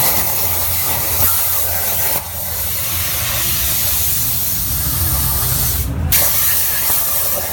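CNC plasma cutter torch cutting sheet metal: a loud steady hiss of the plasma jet over a low hum. The hiss breaks off for a moment about six seconds in and then starts again.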